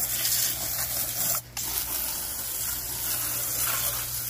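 Water jet from a garden hose's pistol-grip spray nozzle hitting a riding lawn mower's tyre and deck, a steady hiss that cuts out briefly about a second and a half in.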